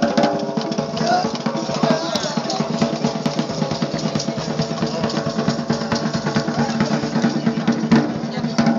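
Music with fast, steady drumming, the beats coming several times a second under steady held tones.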